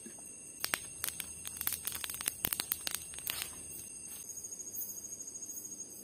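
Metal camp cookware clinking: a quick, irregular run of light clinks and taps for about three seconds. Under it runs a steady high-pitched drone of night insects, with a pulsing trill coming in near the end.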